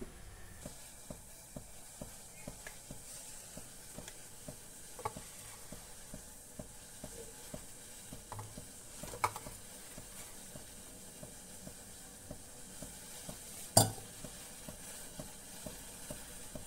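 Faint ticking and crackling of a steel pan of water with soya chunks heating on a lit gas burner, with a few light clinks of steel utensils; the loudest, a sharp clink, comes near the end.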